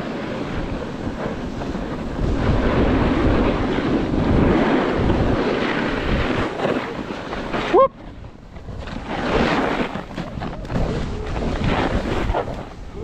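Wind rushing over the camera microphone and a snowboard scraping and carving across packed snow during a run. A short rising squeak a little past halfway, then the noise drops away briefly before building again.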